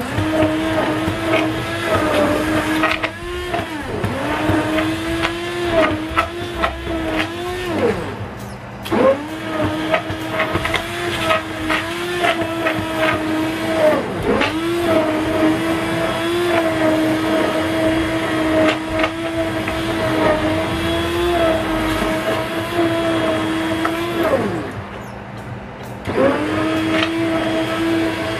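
Hand-held stick blender running in a pot of soup, puréeing the chicken and vegetables into it. The motor whines at a steady pitch that sags and recovers several times as it is loaded or eased off, and it stops for about a second twice, about a third of the way in and near the end, then starts again.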